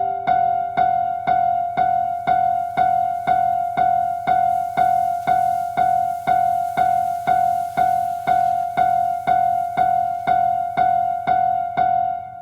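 Background music: a single keyboard note, like an electric piano, struck over and over at an even pace of about two a second.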